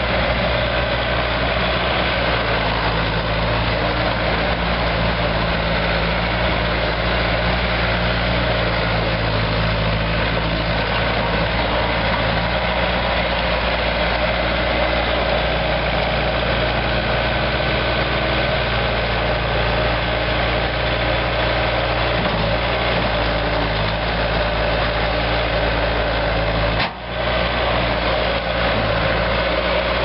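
2005 Bobcat S175 skid steer's Kubota 2.2L four-cylinder diesel engine running steadily. The sound drops out briefly near the end.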